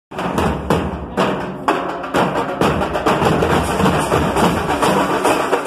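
Nasik dhol troupe drumming: several large dhol drums and a smaller metal-shelled drum beaten with sticks in a loud, fast rhythm. The strokes are spaced at first, break off briefly about a second in, then run on as dense, continuous beating.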